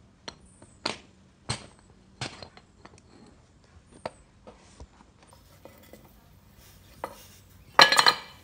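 Metal tongs clinking against a small metal ingot mould: three sharp clinks in the first few seconds, then fainter ticks, and a louder burst of metal clattering near the end as a freshly cast aluminium ingot is worked out of the mould.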